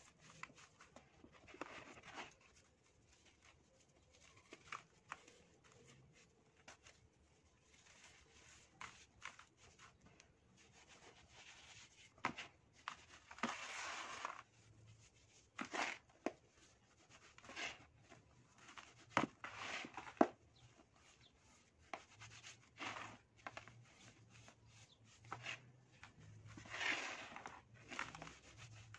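Dry sand sifted and poured through the fingers into a plastic tub, with hands pressing and rubbing the sand: soft swishes of falling sand and scattered sharp ticks, strongest a little before halfway and near the end.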